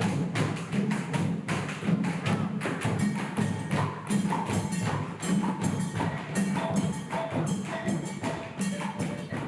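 Percussion-driven music: fast, dense drumming with knocking and shaking percussion, joined by short pitched notes from about four seconds in.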